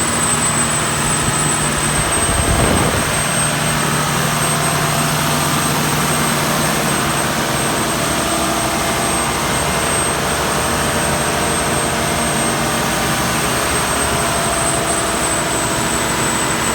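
Volvo Penta TAD1641GE 16-litre inline-six turbo diesel generator set running steadily on a load test, with a constant high whine over the dense engine noise. It swells briefly about two and a half seconds in.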